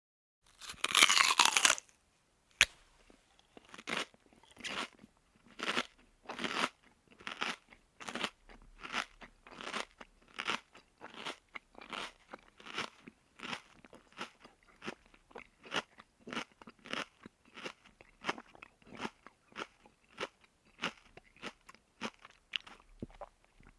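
A person bites into crunchy food with a loud crunch, then a single sharp snap, then chews steadily with a crisp crunch on every chew, about three chews every two seconds.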